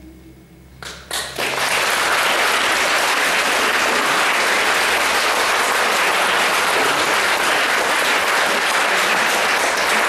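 Audience applauding: a few first claps about a second in, then steady applause.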